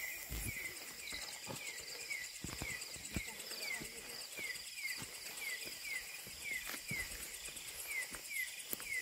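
Night insects calling: a steady high-pitched trill with a short falling chirp repeated two or three times a second. Underneath are footsteps and rustling through tall grass.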